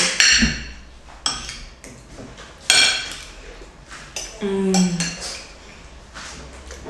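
Metal spoons and forks clinking and scraping against ceramic plates while eating, with several sharp, ringing clinks a second or so apart.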